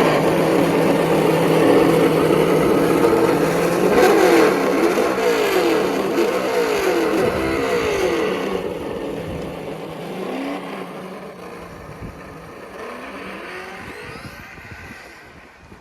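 Traxxas Slash RC truck's On-Board Audio speaker playing a simulated engine sound: it starts loud and steady, then revs up and down several times in quick succession about four seconds in. It fades over the second half as the truck moves away.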